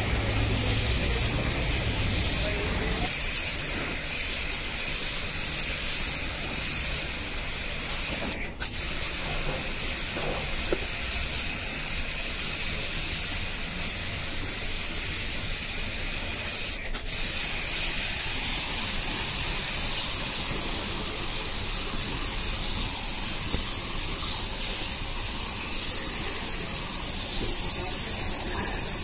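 High-pressure water jet from a jet pump spray gun hitting the finned condenser coil of a split AC outdoor unit: a steady hiss of spray, breaking off for a split second twice.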